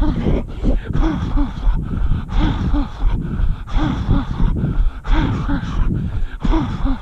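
A runner's heavy, rhythmic breathing during a steady endurance run, panting hard in and out without a break.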